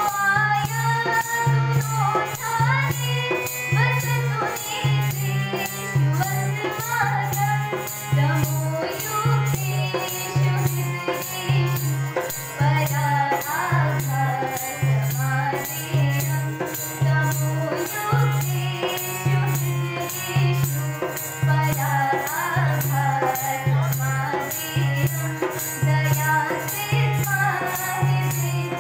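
A Sanskrit gitika sung in a young female voice, accompanied by harmonium, a dholak keeping a steady low beat and a tambourine's regular jingles.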